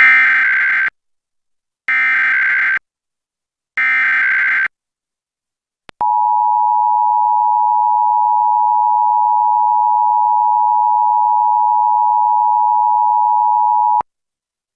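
Emergency Alert System test tones. First come three short raspy data squawks, the SAME header, about a second each with a second's gap between them. Then the EAS two-tone attention signal, a steady harsh dual tone of 853 and 960 Hz, is held for about eight seconds and cuts off.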